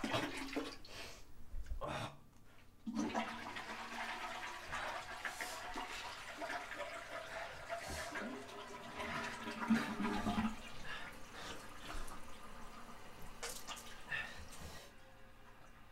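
Bathroom sink faucet running, water splashing steadily into the basin; it starts about three seconds in and stops shortly before the end.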